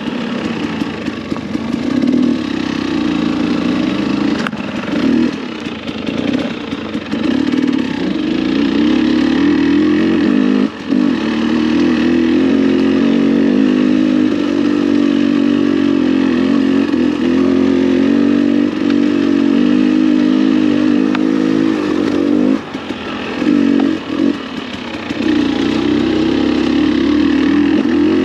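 Dirt bike engine running under load on a trail, mostly steady, with the throttle briefly rolled off a few times.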